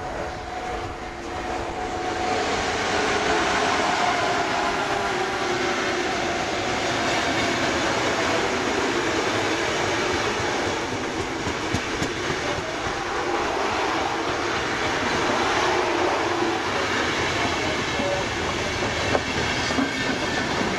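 Electric locomotive hauling a rake of passenger coaches passing close by: steady wheel-on-rail noise with a rattling clickety-clack that swells about two seconds in and holds as the coaches go past.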